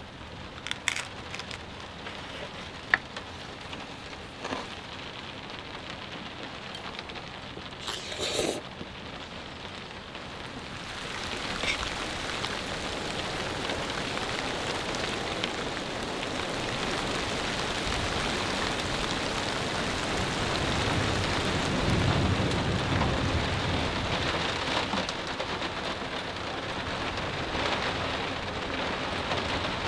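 Heavy rain falling steadily, growing louder about a third of the way in, with a low rumble of thunder about two-thirds of the way through. A few small clicks and a brief rustle sound in the quieter first stretch.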